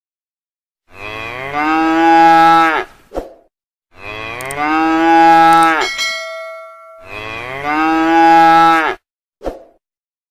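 Cow mooing three times in long, loud calls of about two seconds each, each rising and then falling off. A short bell-like chime sounds between the second and third moo.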